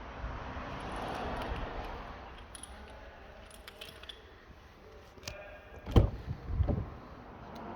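Car keys jingling with scattered small clicks, then a heavy thud about six seconds in and a few softer thuds just after.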